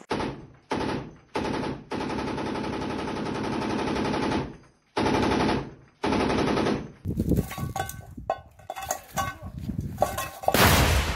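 Large-calibre machine gun firing in bursts: several short bursts and one long burst of about two and a half seconds, then scattered single shots. Near the end comes one loud blast, a rocket-propelled grenade being launched.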